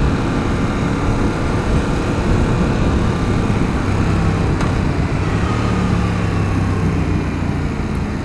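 2015 Yamaha FZ-07 motorcycle cruising at road speed, its 689 cc parallel-twin engine running steadily under heavy wind noise on the microphone. From about halfway the engine's steady hum comes through more clearly.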